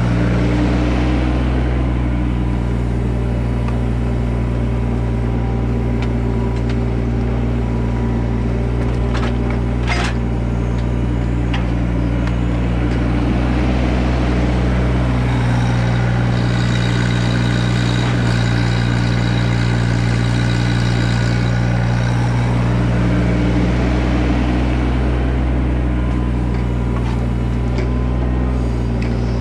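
Compact excavator's diesel engine running steadily, working harder for several seconds in the middle, with a few sharp clicks of a shovel striking stones.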